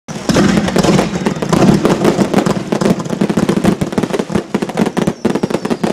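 Fireworks going off in a dense, continuous barrage of bangs and crackling.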